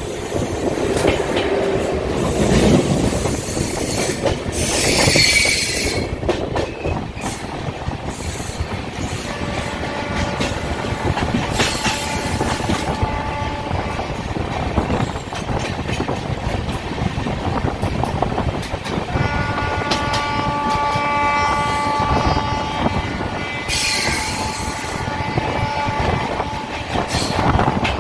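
Express passenger train running on the track, wheels clattering over the rails. A train horn sounds twice, first briefly and then longer. Two short high-pitched bursts cut through the rumble.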